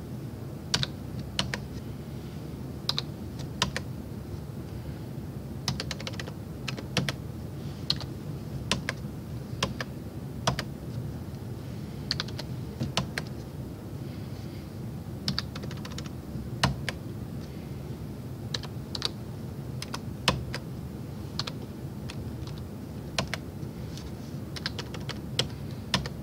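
Computer keyboard being typed on in irregular, scattered keystrokes, over a steady low hum.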